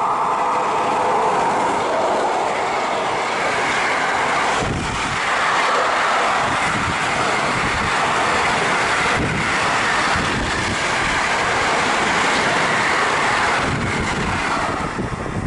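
Intermodal freight train of container and tank-container wagons, hauled by an electric locomotive, passing close by at speed: a steady loud rush of wheels on rail with a repeated clatter as the wagons' bogies go by. It fades just before the end as the last wagons pass.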